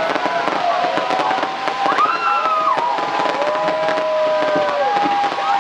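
Aerial fireworks display going off: a dense, continuous run of crackles and bangs.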